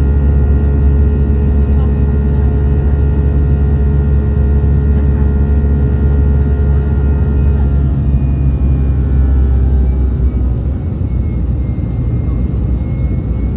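Airbus A320 jet engine and airflow noise heard inside the passenger cabin in flight: a steady low roar with several steady whining tones above it. About eight to ten seconds in, the tones shift and the noise drops a little.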